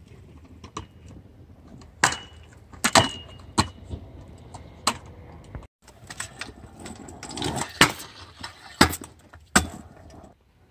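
Stunt scooter rolling over paving bricks with a gritty wheel noise, broken by several sharp clacks as the deck and wheels hit the ground. The sound cuts out for a moment about halfway.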